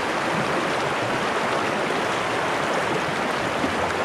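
Shallow river rushing over rocks close to the microphone: a steady, even water noise.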